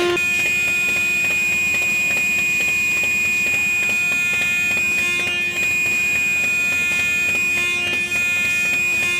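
Film soundtrack: a steady, high-pitched held tone over a sustained chord of music.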